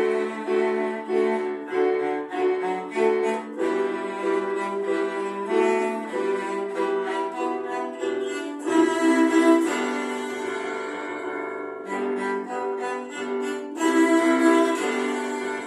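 Violin playing a melody, with short notes changing in a steady rhythm and a smoother, held passage in the middle.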